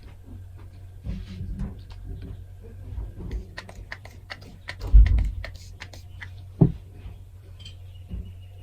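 Scattered light taps and clicks of objects being handled close to the microphone, with a louder thump about five seconds in and another shortly before seven seconds, over a low steady hum.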